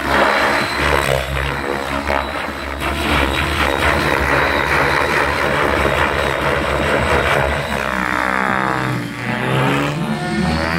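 Radio-controlled helicopter flying aerobatics, its rotor blades and motor running hard at high head speed. Eight to nine seconds in, the sound sweeps in pitch as the helicopter passes close by.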